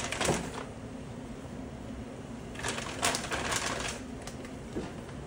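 Frozen breaded chicken patties being set down in a ceramic baking dish: quick clusters of light clicks and taps, one right at the start and another about three seconds in, over a low steady hum.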